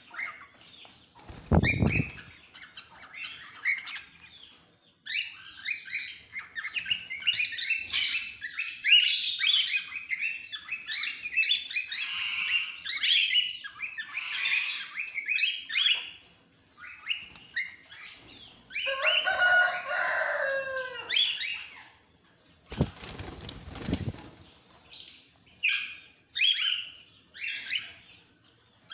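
A flock of cockatiels chirping and calling over one another, with two short bursts of wing flapping, about two seconds in and again about twenty-three seconds in. Around nineteen seconds one bird gives a lower call that falls in pitch.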